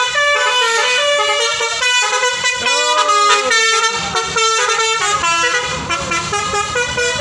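Tour bus's telolet basuri multi-tone horn playing a tune of stepped notes, with a few swooping glides partway through. A low rumble comes in under it near the end.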